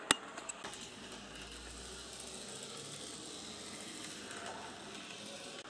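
A sharp click just after the start, then the faint steady whirr and rail ticking of a Z scale model locomotive, a 3D-printed brass boxcab on a Rokuhan shorty chassis, running along the track.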